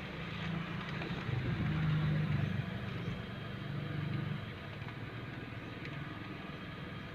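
Honda Civic engine running at idle with a misfire, its level swelling slightly in the first few seconds and then settling.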